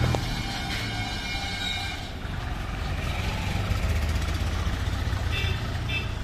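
Diesel tractor engine running steadily at low speed while towing a trailer loaded with bricks. Two short high beeps come near the end.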